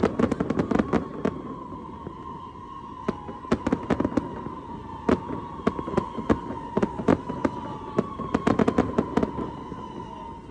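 Aerial fireworks bursting overhead: a rapid run of sharp bangs and crackles, densest at the start and again about eight to nine seconds in. A steady high tone runs underneath.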